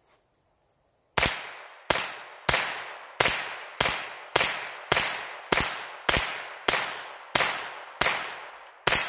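Hammerli TAC R1 .22 LR semi-automatic rifle fired rapidly: about a dozen shots a little over half a second apart, starting about a second in, each followed by a short ringing tail.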